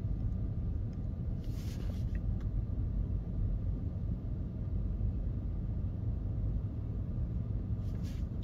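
Low steady rumble of traffic heard from inside the cabin of an electric car standing at a red light, with a brief hiss about one and a half seconds in.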